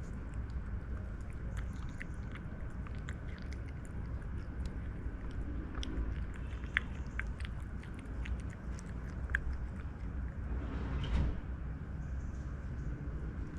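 A cat chewing food, with scattered small clicks over a steady low rumble and a brief louder noise near the end.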